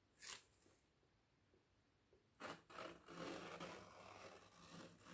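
Mostly near silence, with one brief soft noise about a quarter second in, then faint irregular rubbing and scraping from about two and a half seconds on as gloved hands lift an upturned plastic paint cup off the canvas and steady the canvas.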